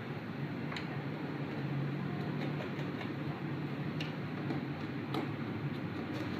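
A few sharp small clicks of tools and parts being handled while a smartphone is taken apart, spaced irregularly, over a steady low background hum.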